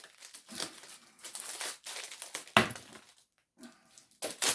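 Packaging crinkling and rustling as it is handled, with a sharp knock about two and a half seconds in and another near the end.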